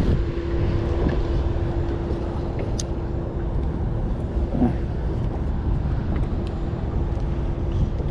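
A small boat's motor running at a steady hum, with wind rumbling on the microphone.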